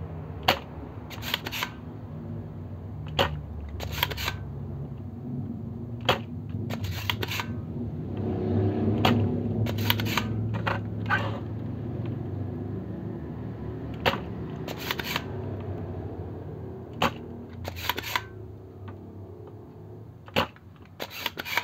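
Spring-loaded desoldering pump (solder sucker) firing again and again as molten solder is sucked out of a circuit board's through-holes: about a dozen sharp snaps every second or two, some in quick pairs.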